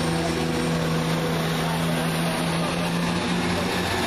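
Class 170 Turbostar diesel multiple unit's underfloor diesel engines running with a steady, even hum.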